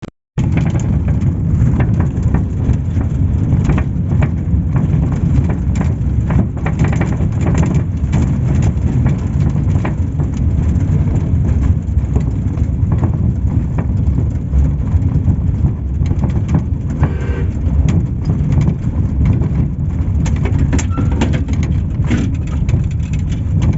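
Inside a moving local bus: a loud, steady low engine and road drone, with constant rattling and knocking from the bus body and fittings.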